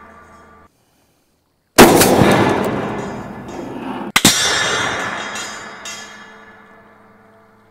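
Two heavy .50 caliber rifle shots, steel-core rounds from a Barrett M82A1, striking a louvered steel ballistic barrier. Each is a sudden loud bang with a long fading ring, the second about two and a half seconds after the first. A fading tail of an earlier shot cuts off abruptly in the first second.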